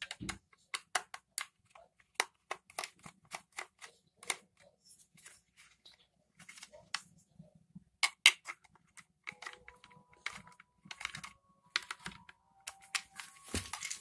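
Hand screwdriver turning screws out of a handheld vacuum cleaner's plastic housing: a run of irregular sharp clicks and taps from the tool and the casing, with a few faint held tones in the second half.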